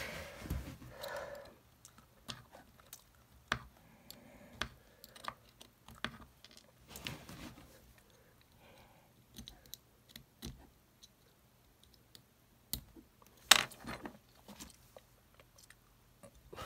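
A blade cutting, scraping and prying at the small plastic housing of an EarPods Lightning connector: irregular crunching, scraping and clicks, with one sharp click about thirteen and a half seconds in.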